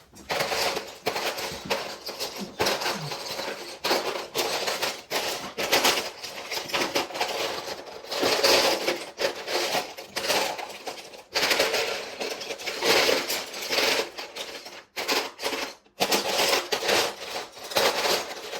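Plastic Lego bricks clattering and clicking in a quick, continuous rattle as they are handled and sorted by hand, with louder surges every few seconds.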